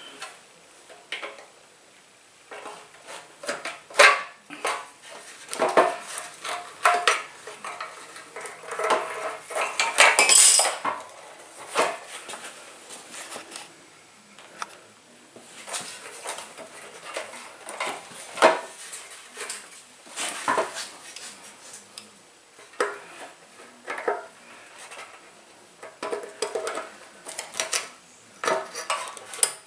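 Hand tools clinking, tapping and scraping on the rusty metal quarter-turn lock ring of a scooter fuel tank's fuel-gauge sender as it is worked loose, in irregular clicks and short scrapes, busiest about ten seconds in.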